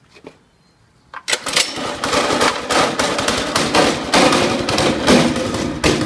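Predator 212cc single-cylinder four-stroke go-kart engine being started, catching a little over a second in. It then runs loud and fast with a rapid, rattling firing beat.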